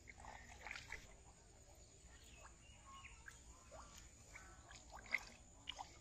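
Faint, scattered short animal calls and chirps, with a single sharp click about five seconds in.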